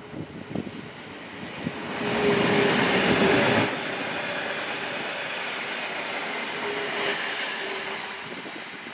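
Stadler FLIRT 3 (DB class 429) electric multiple unit passing close by. Its running noise swells about two seconds in, is loudest for a second or two as the train goes past, then settles to a steadier rumble with a faint steady hum as it runs on.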